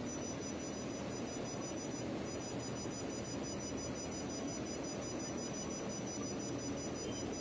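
Steady machine hum from a running jewelry laser spot welder, with a faint high-pitched electronic whine over it.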